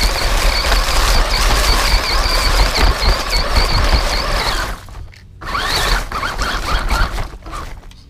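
Small electric 1/18-scale 4WD RC truck driving over grass and dry leaves, heard close up from on board: a high steady motor-and-gear whine over rustling and scraping from the tyres. About five seconds in it cuts out briefly, then comes back rising and falling with the throttle and drops away near the end.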